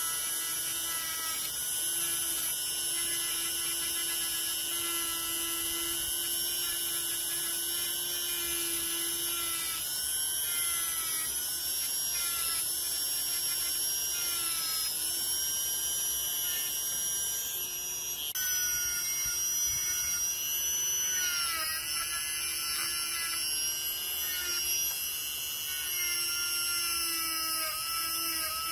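Handheld rotary tool running at high speed with a steady high-pitched whine. Its pitch sags briefly several times as a tiny screw held in pliers is pressed against the spinning abrasive bit to clean it.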